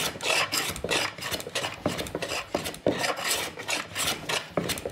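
Stanley Sweetheart No. 4½ smoothing plane taking quick, repeated light shaving strokes across a laminated hardwood cutting board. The iron shears at an angle across the grain of the glued-up strips.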